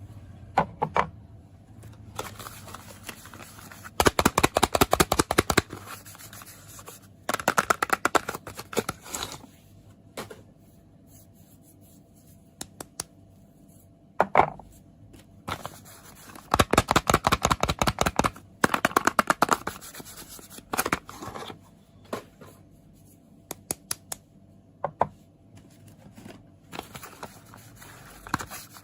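Quick runs of tapping on soap packaging, each lasting a second or two, with single taps in between.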